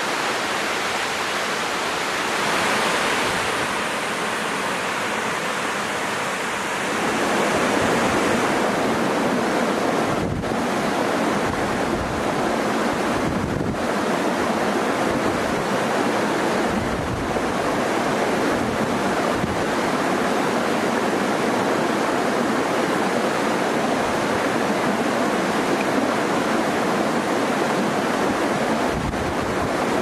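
Rushing water of a waterfall and rocky stream, a steady noise that grows louder and fuller about seven seconds in, with a few brief low wind buffets on the microphone.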